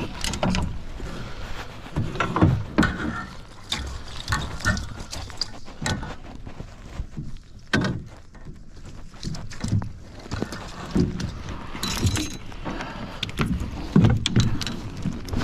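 Irregular knocks, clunks and handling noises in a fishing boat, over a steady low rumble.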